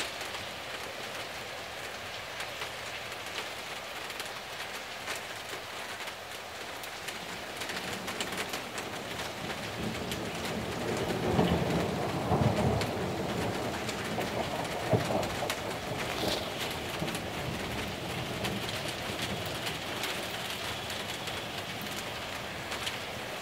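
Steady heavy rain falling, with many close raindrop hits. About ten seconds in a roll of thunder builds, loudest for a few seconds with a second swell, then fades back under the rain.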